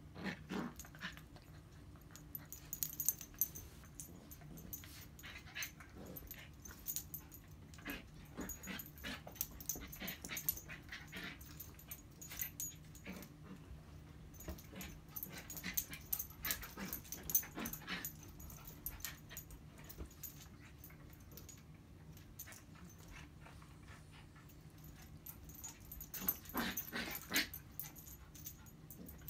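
Small dogs play-fighting on a bed: short, scattered dog sounds and scuffling in irregular bursts, with a quieter stretch a little past the middle and a busier flurry near the end.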